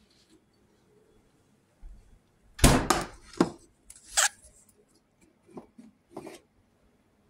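A cooking pot and its lid being handled: a handful of separate knocks and clanks, the loudest cluster about two and a half to three seconds in, with a few lighter ones after.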